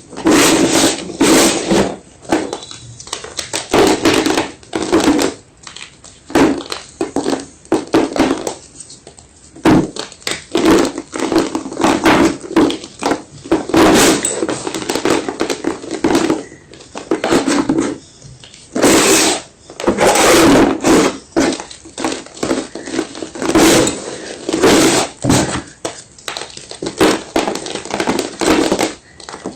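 Fresh white gym chalk crunching and crushing, in many irregular crisp cracks and grinds, some quick and some drawn out over about a second.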